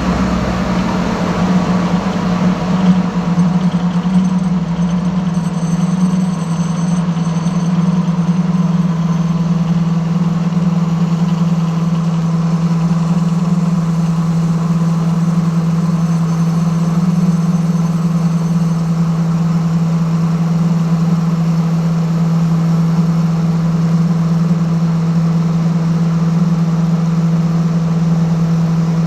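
Lathe running steadily, a loud constant motor hum with no change in pitch.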